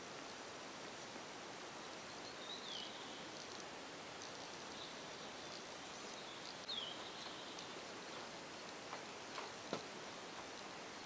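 Faint, steady background hiss with two short, high chirps that fall in pitch, about four seconds apart, and a few faint clicks near the end.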